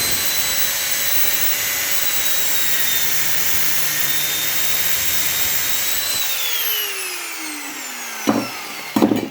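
Angle grinder running at full speed with a high whine and a grinding hiss, cutting into brass scrap; about six seconds in it is switched off and winds down with a falling whine. Two sharp knocks come near the end.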